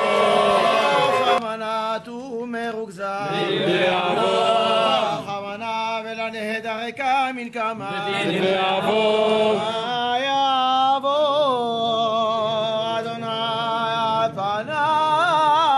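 Men chanting Hebrew prayer, one voice leading in a wavering, ornamented line. Shofar blasts and crowd shouting fill the first second or so, then give way to the chant.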